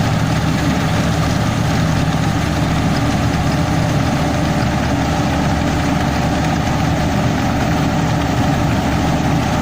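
Fortschritt E 512 combine harvester running, its diesel engine and machinery giving a loud, steady drone.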